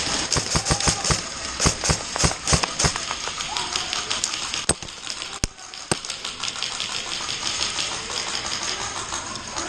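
Airsoft guns firing: a rapid, irregular run of sharp pops for about three seconds, then a few single shots in the middle.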